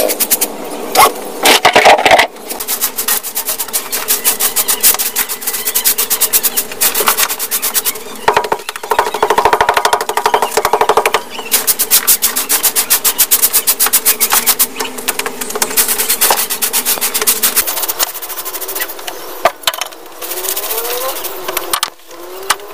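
Straw hand broom sweeping a dusty dirt floor in quick, scratchy strokes, over a steady hum, with a couple of louder knocks near the start.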